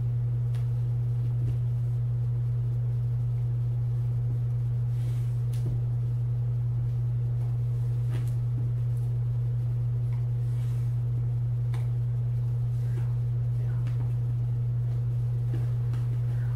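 A steady low hum: one unchanging deep tone at an even level throughout, with a few faint clicks over it.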